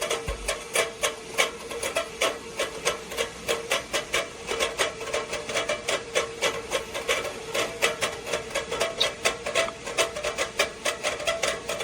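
Stainless steel whistling tea kettle at the boil, giving a weak, low steady whistle over a fast ticking rattle of about four to five clicks a second. The whistle is anemic, hardly a squeak.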